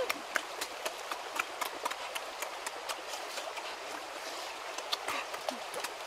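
Irregular clicks and snaps of small red fruit clusters and their twigs being handled and broken off, over the steady rush of a shallow stream.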